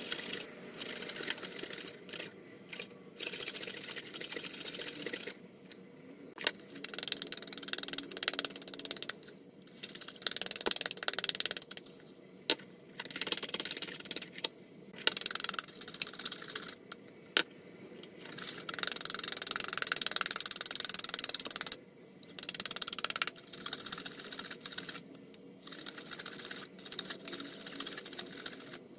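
Wire balloon whisk beating a thick mixture of coffee powder, sugar and hot water by hand in a ceramic bowl to whip it into dalgona coffee foam. The wires make rapid scraping and clicking against the bowl, in spells of a few seconds broken by short pauses.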